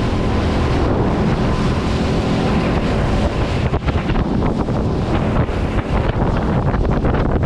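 Strong wind buffeting the microphone on a small open boat at sea, with waves washing against the hull.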